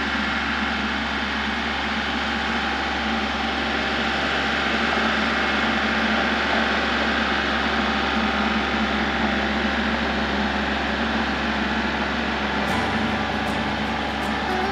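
Kubota L3901 compact tractor's diesel engine running steadily.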